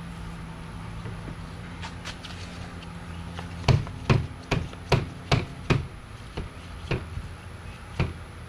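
A quick run of about nine sharp knocks of a hard object, two or three a second, starting about three and a half seconds in, over a low steady hum.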